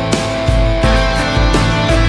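Background music with a steady beat about twice a second and guitar.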